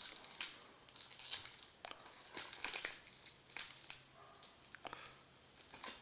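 Trading-card pack wrapper crinkling and rustling as it is handled, in short irregular bursts.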